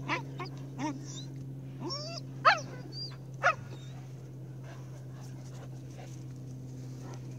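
Leonberger puppy giving about half a dozen short, high yips and barks in the first three and a half seconds, play barks asking an adult dog to play, over a steady low hum.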